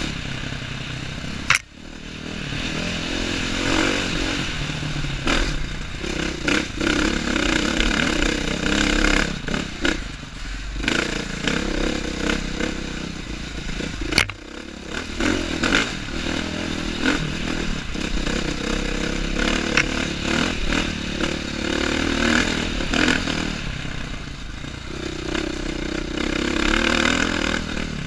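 A 2015 KTM 450 XC-F dirt bike's single-cylinder four-stroke engine revving up and down with the throttle as it is ridden along a dirt trail, with rattling from the bike. Two sharp knocks stand out, about one and a half seconds in and about fourteen seconds in.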